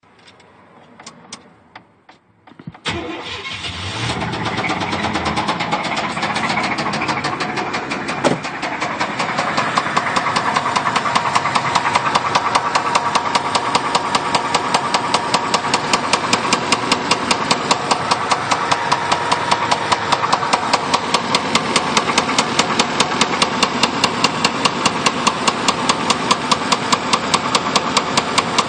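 Chevrolet Caprice engine starting about three seconds in, after a few quiet clicks. It then runs at idle with a rapid, even tapping knock, a pushrod knock that the owner puts down to over-revving in second gear on the highway.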